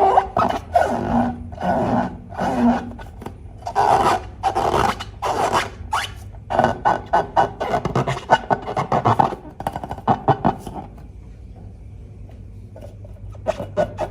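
Slime being worked by hand: sticky rubbing and scraping with runs of quick crackling clicks, dying down to a quieter stretch a few seconds before the end.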